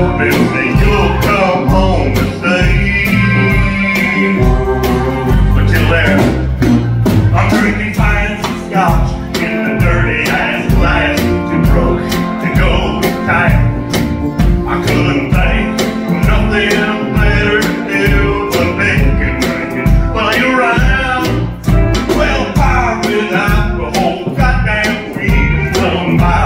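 Live country band playing: acoustic and electric guitars, electric bass and a drum kit keeping a steady beat.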